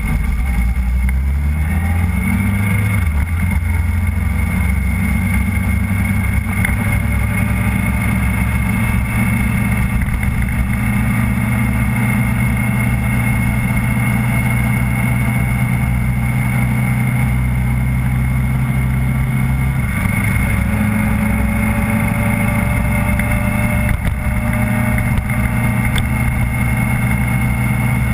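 Motorcycle engine heard from an onboard camera. It picks up in pitch over the first couple of seconds as the bike pulls out of a bend, then runs at a steady cruise. The engine note shifts about twenty seconds in.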